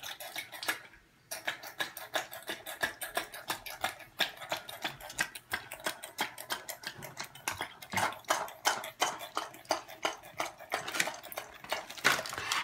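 Small plastic water-balloon hand pump worked rapidly: a quick, even run of clicks at about five a second, pausing briefly about a second in.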